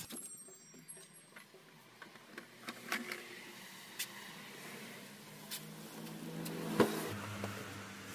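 Car engine running steadily with a low hum, with a few light clicks and one sharp knock about seven seconds in.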